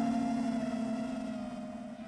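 FPV quadcopter's brushless motors whining at a nearly steady pitch, fading out.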